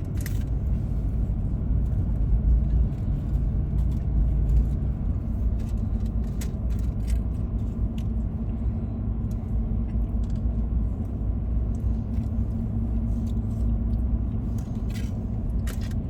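Steady road and engine rumble inside a moving truck's cabin, with a few small clicks and rustles.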